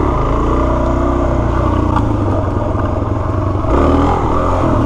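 Suzuki DR-Z400S single-cylinder four-stroke engine running steadily under way on a dirt road. Its note swells briefly about four seconds in with a change of throttle.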